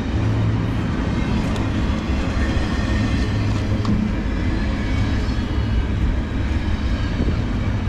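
Empty double-stack intermodal well cars of a freight train rolling slowly past on the rails as the train slows toward a stop, a steady rumble of wheels on track.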